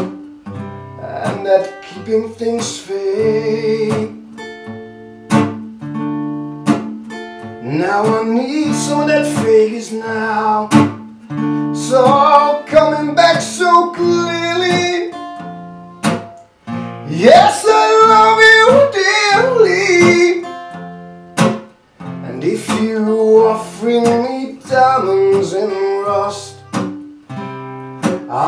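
Acoustic guitar played in a song, strummed and picked, with a man singing over it in phrases.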